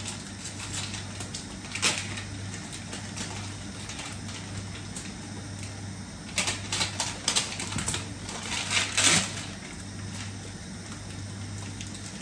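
Scissors snipping and a plastic packet crinkling as a packet of tamarind is cut open: one sharp snip about two seconds in, then clusters of crinkling and snipping around six to seven and nine seconds in, over a steady low hum.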